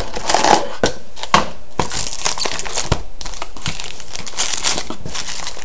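Trading card pack wrappers crinkling irregularly as the packs are handled and taken out of the box.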